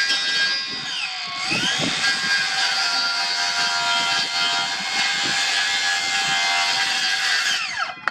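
Kobalt XTR 24V Max 7-1/4-inch brushless cordless circular saw running at full speed with a high whine while cutting a wooden board. Its pitch dips briefly about a second in as the blade takes the load, then holds steady. Near the end the trigger is released and the saw's brake stops the blade quickly, the whine falling away in well under a second.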